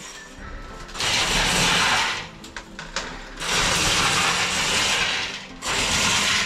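Drum-type drain-cleaning machine spinning its spring cable in a drain line, switched on in spells: about a second in, again for about two seconds midway, and once more near the end, with quieter gaps between.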